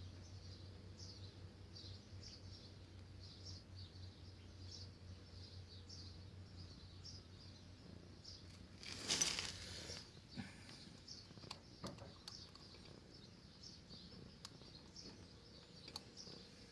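Faint small-bird chirps repeating about once or twice a second over a low hum that stops about seven seconds in. About nine seconds in comes one short, louder rustling scrape, followed by a few light clicks.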